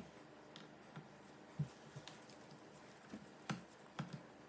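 Several faint clicks and taps of a screwdriver and gloved hands on a laptop's plastic bottom cover. The sharpest come about a second and a half in and again near the end, as the screwdriver goes to a hinge screw.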